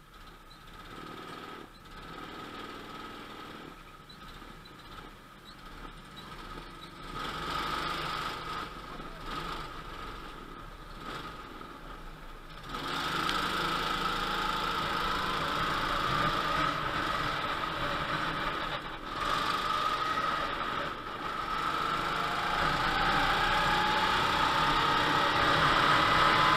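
Rental go-kart engines running at low speed in the pit lane, then about halfway through the kart's engine opens up and gets much louder as it accelerates onto the track, its pitch climbing near the end.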